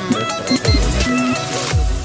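Electronic dance music with a synth melody and deep, falling kick drums.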